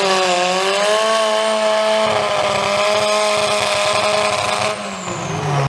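Two-stroke chainsaw engine revved to full throttle and held there with a steady high whine. Near the end the throttle is released and the pitch drops.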